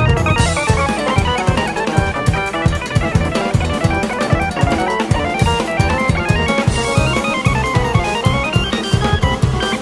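Jazz-funk synthesizer lead solo playing rapid runs of sixteenth notes over a band with drum kit. Cymbal crashes come in a little after the start and twice around the middle.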